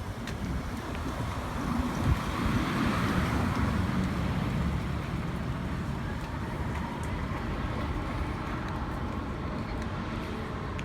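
City street traffic: a vehicle passes, swelling and fading about three seconds in, over a steady low traffic rumble.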